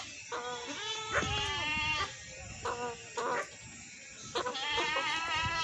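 Goats bleating, several calls one after another, some long and some short.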